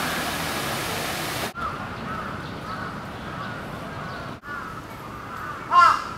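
Crows cawing: faint, repeated caws through the middle, then a loud caw near the end. For about the first second and a half, the steady rush of a fountain's water.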